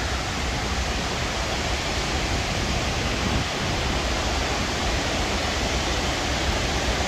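Steady rush of river water pouring over the falls of a diversion dam.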